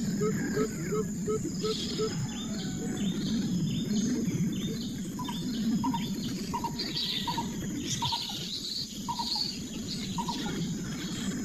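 Birds calling over a steady high-pitched insect drone. A quick run of short low notes, about three a second, fades out in the first second and a half. From about five seconds in, higher chirps repeat roughly twice a second.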